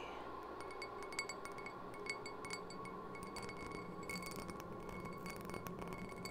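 Wind chimes tinkling in quick, irregular strikes over a steady ambient drone.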